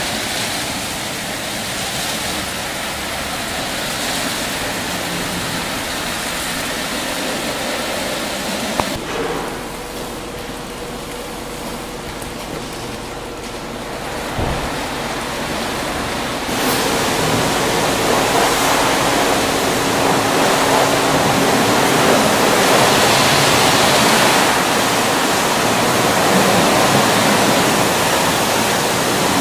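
Aquarama rollover car wash machine at work: spinning brushes scrubbing a car under spraying water, a steady rushing noise. For several seconds in the middle it drops away to a faint steady hum, with a click and later a knock, then the spray comes back louder.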